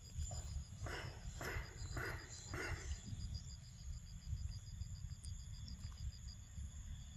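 An insect chirping in a fast, even pulse that stops near the end, over a steady low rumble. Four short, noisy scuffs come in the first three seconds.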